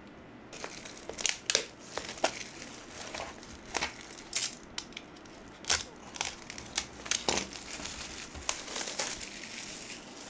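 Plastic shrink-wrap being slit with a small blade and peeled off a vinyl LP jacket, crinkling and crackling in irregular snatches.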